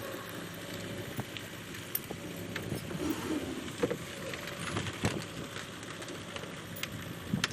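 An engine running steadily in the background, with scattered light clicks and clanks.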